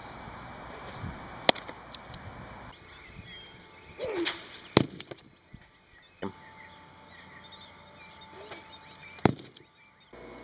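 Pitched baseballs hitting their target: three sharp smacks a few seconds apart, with birds chirping faintly in the background.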